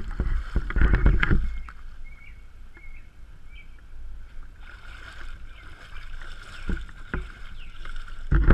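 A small boat moving on floodwater, with irregular low rumbles and knocks of wind on the microphone and a few short, high chirps in the first half.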